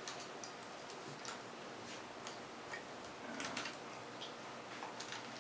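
Faint, irregular small clicks and taps of wires and parts being handled and repositioned on a homemade Tesla coil setup, over a low hiss, with a few quicker clicks about three and a half seconds in.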